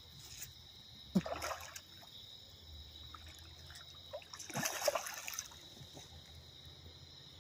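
Water splashing twice, briefly about a second in and longer near the middle, as a hooked catfish thrashes at the surface.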